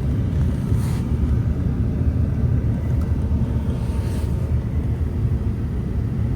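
Steady low rumble and rush of air inside the cabin of a 1992 Mercedes-Benz 500SEL, its climate-control blower running and pushing air out of the vents.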